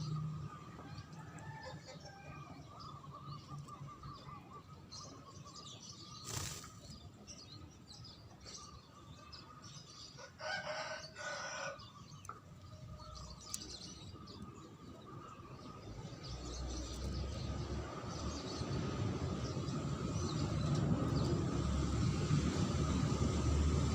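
Songbirds chirping and calling in short high phrases, with a rooster crowing once about ten seconds in. A low rumble grows louder through the second half.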